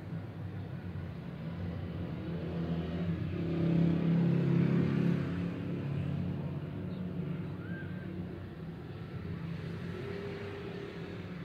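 Olympus CLV-180 light source running, a steady low hum from its cooling fan, swelling louder for a couple of seconds about four seconds in.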